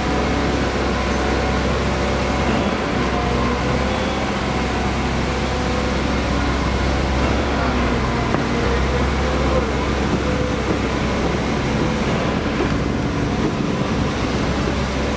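Steady engine hum and traffic noise, with several held tones over a constant rush and no break.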